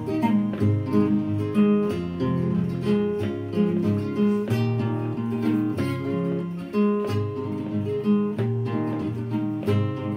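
Background music played on acoustic guitar, strummed and picked with a steady rhythm.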